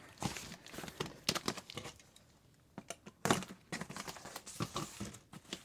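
Cardboard model-kit boxes and their packaging being handled: a run of small taps, scrapes and rustles, a short lull about two seconds in, then more handling with a louder knock just after three seconds.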